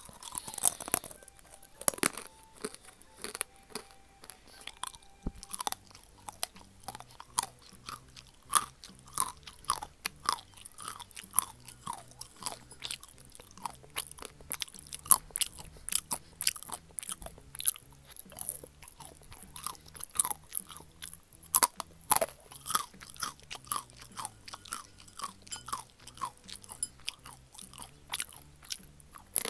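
Close-miked eating of thin, crisp-fried sweet potato sticks: a steady run of sharp, brittle crunches and chewing, about two to three crunches a second.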